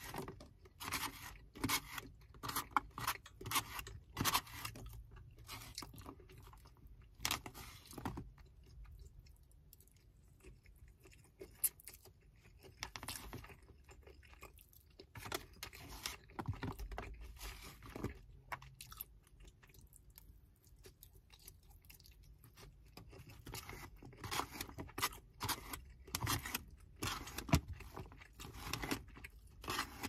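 Close-up chewing and crunching of kung pao chicken and noodles, with a plastic fork scraping and clicking in a styrofoam takeout container. The clicks and crunches come thick for the first several seconds and again near the end, with quieter chewing between.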